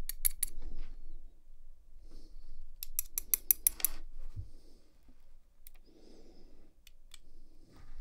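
Small metallic clicks from pin-tumbler pins and springs being pushed out of an American Lock 1100 padlock's brass cylinder housing with a thin steel tool and laid into a plastic pin tray. There is a quick run of clicks at the start and another about three seconds in, a few single ticks later, and soft handling rustle between them.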